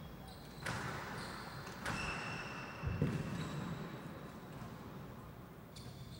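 Squash rally: the rubber ball struck by rackets and smacking off the court walls, three sharp hits about a second apart that ring in the hall, with high shoe squeaks on the court floor.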